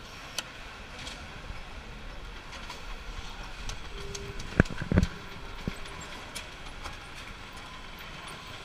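Factory-floor background on a TV assembly line: a steady mechanical hum, with two sharp knocks a little past halfway.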